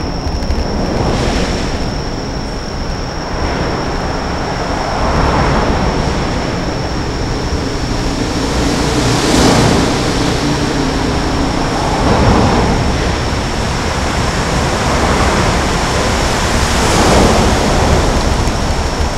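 Road traffic on the Rainbow Bridge: a steady rumble and hiss, with vehicles passing every few seconds, each one swelling and fading. A thin steady high tone runs underneath.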